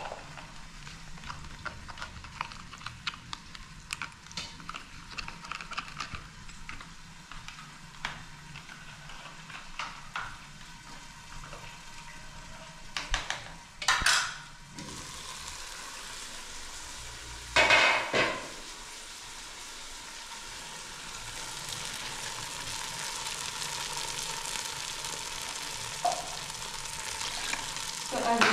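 Tomato sauce frying in a pot on a gas stove, with a steady sizzle that grows slowly louder through the second half. In the first half, small clicks and rustles of packets and utensils being handled sound over it, and two loud, brief clattering sounds come about halfway.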